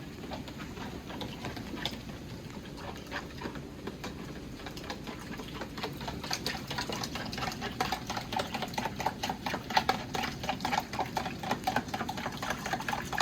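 Metal fork beating quickly against the side of a bowl or pot, a fast run of clinks that grows louder and more ringing about halfway through.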